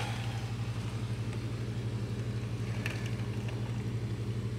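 A steady low engine hum with a fast, even pulsing, like an engine idling. Faint noise and a couple of light clicks sit behind it.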